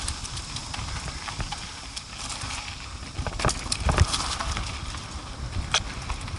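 ATV riding a rough dirt trail: a steady low rumble with irregular knocks and clatter, the loudest about halfway through and again near the end.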